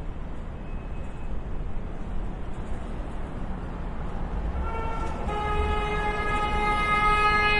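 Steady low rumble of city street traffic. About four and a half seconds in, a vehicle horn gives a short toot and then one long, steady blast that is still sounding at the end.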